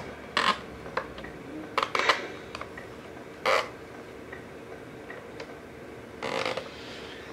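Scale RC truck's electronic sound and light system giving a faint steady hum, broken by scattered short clicks and a few brief hisses.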